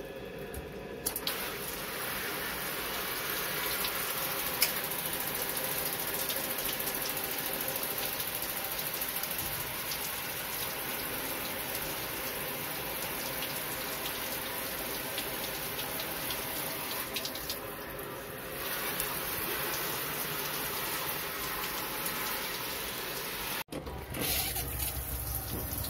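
Water running steadily from a shower head fed by a gas instantaneous water heater on a test run after repair, a steady rushing hiss that starts about a second in. It dips briefly and cuts out for an instant near the end.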